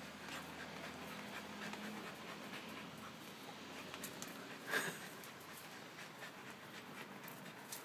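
A corgi panting while it works a ball with its nose and paws, with a short, louder scuff a little before five seconds in.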